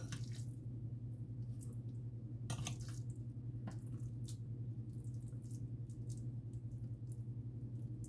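A metal spoon scooping moist ground-beef-and-rice filling from a glass bowl and packing it into a bell pepper: scattered soft scrapes, clicks and wet squishes over a steady low hum.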